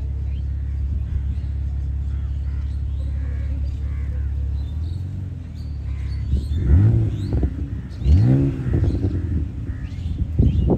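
BMW Z4 roadster's engine idling steadily, then revved in two short blips, pitch rising and falling, about six and a half and eight seconds in.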